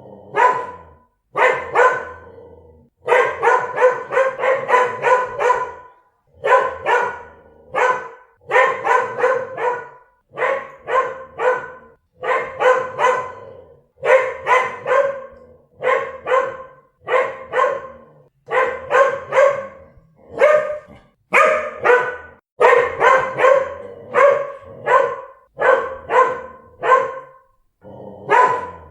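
Dog barking over and over in quick bursts of several barks each, separated by short pauses.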